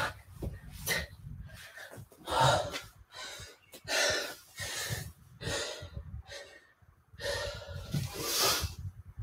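A man breathing hard after exercise: heavy, forceful breaths in and out, roughly one every second, with a short pause a little after the middle. He is out of breath from a set of mountain climbers.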